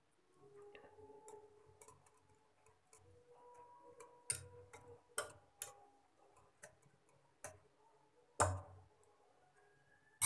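Stainless-steel wire whisk stirring yogurt and grated cucumber in a glass bowl: faint, irregular ticks and clinks of the wires against the glass, with a few sharper knocks, the loudest near the end.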